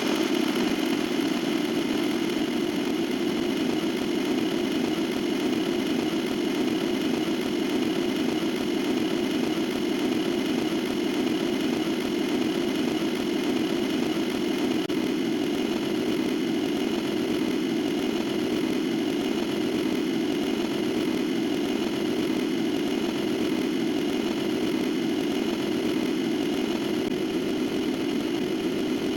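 A steady, unchanging engine-like drone.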